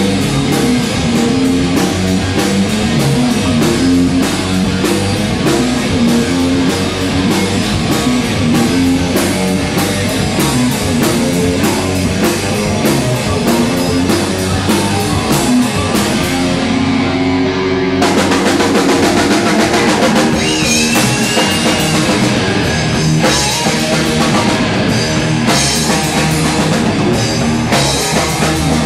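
A rock band playing live: a drum kit keeps a steady beat under electric guitar and bass. About eighteen seconds in the music changes abruptly into a new section.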